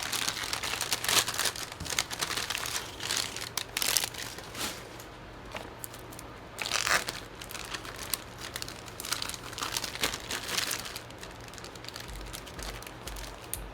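Irregular crinkling and rustling from close-up hand work with cleaning swabs, their packaging and old thermal paste, in short uneven bursts.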